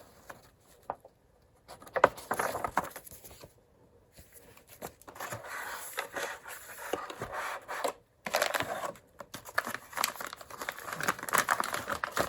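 Packaging being handled: irregular crinkling and rustling of plastic bags and paper with small clicks, in stretches with short pauses.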